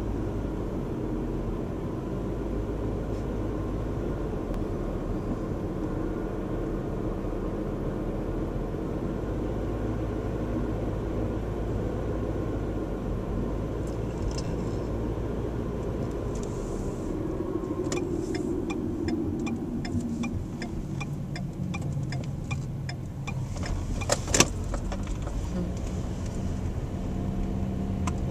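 A car's engine and tyre noise heard from inside the cabin, a steady low drone that eases as the car slows about two-thirds of the way through. While it turns off the road, a turn-signal relay ticks evenly, about two to three ticks a second, for around five seconds. One sharp click follows.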